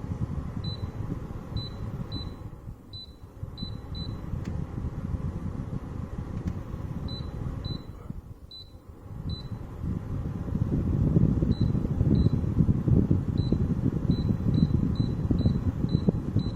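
Short, high electronic beeps from a Philips HU2716/10 humidifier's control panel as its buttons are pressed, coming in quick runs of several beeps. They sound over a low, uneven rumble that swells near the end.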